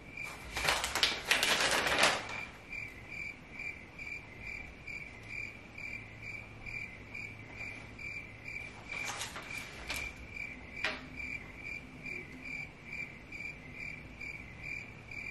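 Paper sheets of an instruction manual rustling as they are unfolded and handled, loudest in the first two seconds and again about nine seconds in, with one sharp click near eleven seconds. A steady high chirp repeats a little over twice a second throughout.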